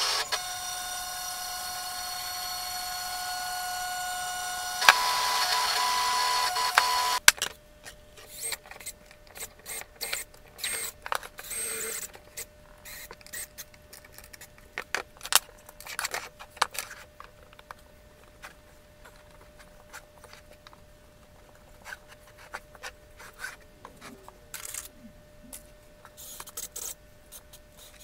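Sped-up workshop handling sounds: a rapid scatter of clicks, taps and knocks as small wooden model parts and hand tools are picked up, fitted and set down on a wooden workbench. These are preceded by a steady whine of several held tones, which shifts in pitch about five seconds in and cuts off suddenly a couple of seconds later.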